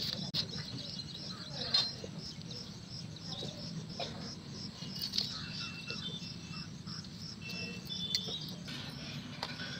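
Crickets chirping in a steady, evenly pulsing high trill, with short bird chirps in the middle and a couple of light knocks in the first two seconds.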